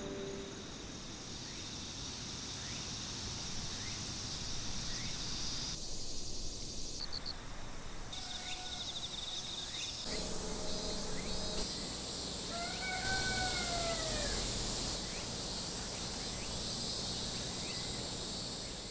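Summer-evening outdoor ambience: insects trilling steadily at a high pitch, with a few short chirps and one arching, falling call about two-thirds of the way through. The background shifts abruptly several times as shots change.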